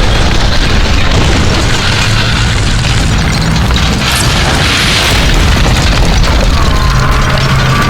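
Dense, loud explosion sound effects: a continuous booming rumble with no break, the kind laid over an animated battle scene.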